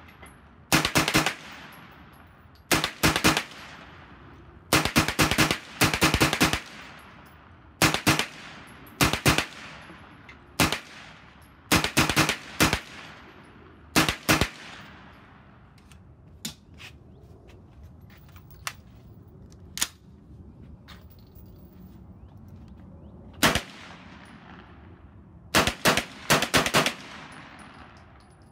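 Gunfire from a Colt AR-pattern 9mm carbine: quick strings of two to four shots, one string every second or two. About halfway through there is a lull of several seconds with only faint, distant shots, then two more strings near the end.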